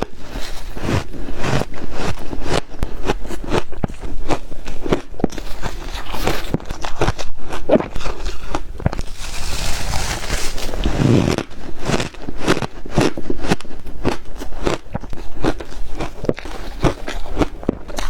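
Ice being bitten and chewed close to the microphone: a fast, irregular run of sharp crunches and crackles, with a louder grinding stretch about two-thirds of the way in.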